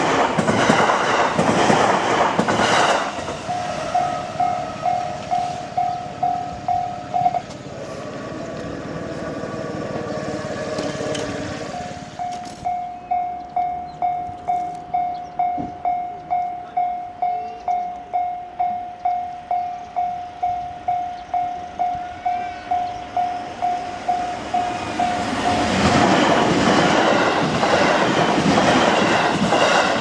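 Electric commuter train passing over a level crossing, loudest in the first few seconds. Then the crossing's electronic warning bell rings as a steady pulsing tone about twice a second, with a few seconds' break in the middle, until another train passes near the end.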